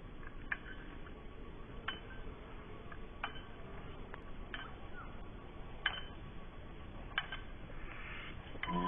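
Soft metallic clinks, one about every second and a third, evenly spaced, over a faint steady hiss.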